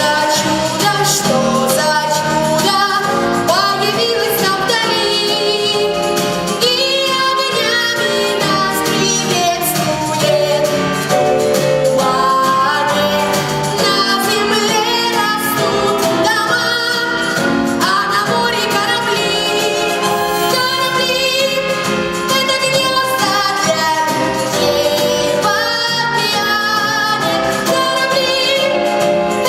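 A woman singing a slow ballad with vibrato over a sustained instrumental accompaniment.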